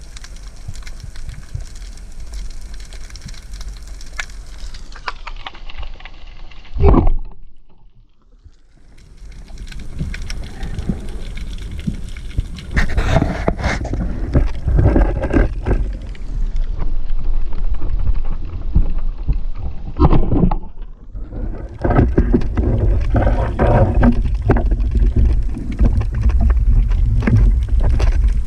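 Sea water churning and splashing against a spearfisher's camera, heard as muffled underwater rushing with scattered knocks. It drops almost to silence for a moment about eight seconds in, then comes back louder.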